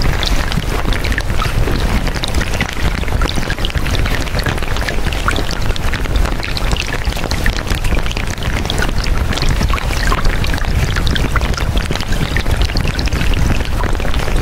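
Subliminal audio: many layered affirmation tracks sped up about fifty times, blurred into a dense, steady hiss full of tiny crackles and chirps over a deep rumble.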